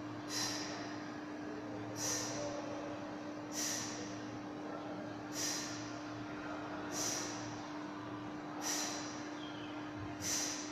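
A man's sharp, rhythmic exhalations during a bodyweight exercise, about one breath every second and a half to two seconds, over a steady low hum in the room.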